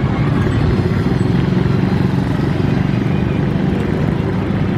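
Steady low engine rumble from vehicles, even throughout with no single event standing out.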